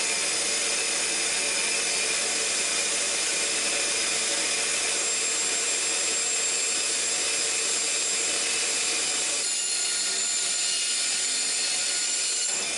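Bench bandsaw running and cutting through a dry, aged tea olive log, a steady whine with sawing noise; the sound thins out about nine and a half seconds in as the cut frees up. A cut called a little treacherous on the bandsaw blade.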